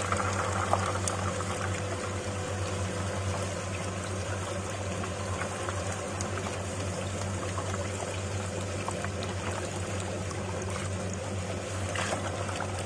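Peanut skin-peeling machine running: a steady motor hum under a continuous rushing, pouring noise with scattered faint ticks.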